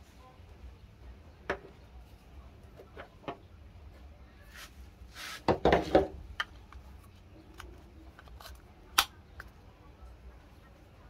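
Hard plastic clicks and knocks as PVC pipe fittings are handled and fitted together. The loudest part is a brief scrape and a quick cluster of knocks just past halfway, with single clicks before and after.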